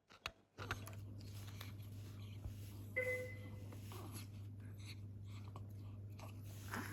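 A steady low hum with faint clicks and rustles, and one short electronic beep about three seconds in.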